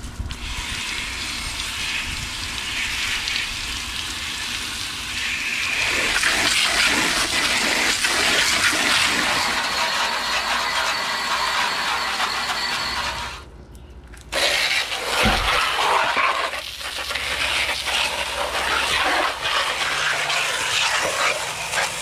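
Garden hose spray nozzle jetting water onto window air conditioner parts and the outer case: a steady hissing spray with splashing, rinsing off bleach and dish-soap cleaner. The spray stops briefly about two-thirds of the way through, then resumes.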